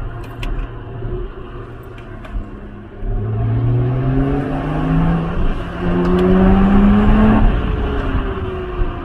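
Lotus Exige engine pulling hard through a gear: its note climbs steadily for about four and a half seconds, then drops suddenly as the revs fall. Before that it runs quieter, with a few sharp pops near the start.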